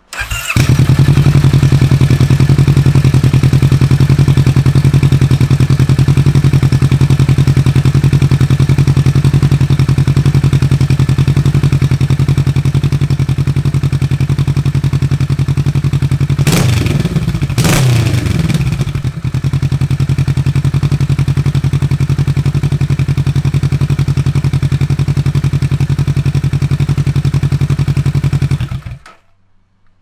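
Kawasaki Vulcan S 650's parallel-twin engine through a Firetong slip-on exhaust with its dB killer baffle fitted: it starts up, idles steadily, is revved in two quick throttle blips about halfway through, settles back to idle, then is switched off near the end.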